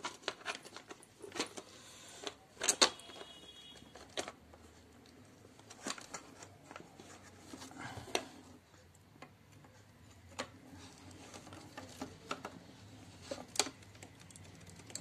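Hand tools clicking and knocking against a clear plastic jar as the nuts holding its metal heater plates are tightened. The clicks are scattered and irregular, with a few sharper knocks about three seconds in and near the end.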